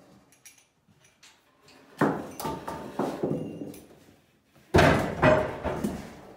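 Two loud clunks, about two seconds in and just before the end, with a few lighter knocks between them, as yellow ratchet straps are handled and taken off the Heco 520 wood cookstove.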